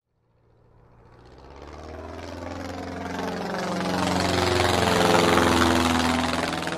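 An aircraft flying past: its engine sound swells out of silence to a peak about five seconds in, then begins to fade.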